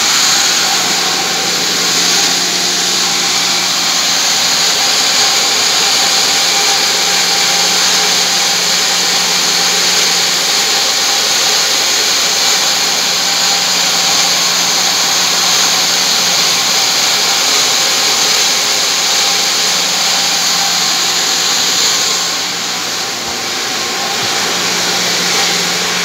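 Vertical centrifugal water pumps and their electric motors running together: a loud, steady machine noise with a constant low hum under a strong high hiss, easing slightly near the end.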